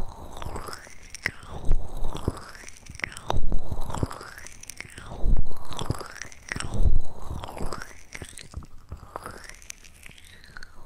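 Close-microphone ASMR mouth sounds, small wet clicks and smacks, run through a swirling sweep effect. About four deep, soft thumps come in the middle.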